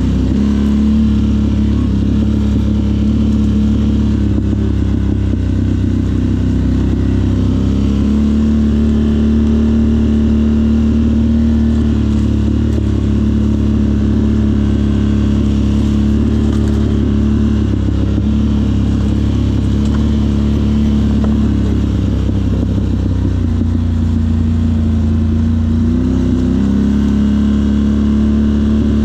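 Off-road vehicle engine running steadily, its note easing slightly lower a couple of times and coming back up.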